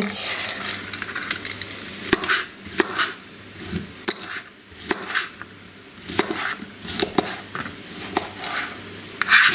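Kitchen knife chopping zucchini on a plastic cutting board: a string of irregular knocks as the blade goes through the strips onto the board.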